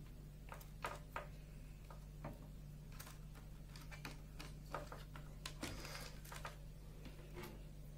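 Light, scattered clicks and small knocks of hard plastic as fibre pigtails and a blockless splitter are pressed into the clips of a plastic optical splitter box tray, with a busier run of clicking and rubbing about two-thirds of the way through as the tray is handled. A steady low hum lies underneath.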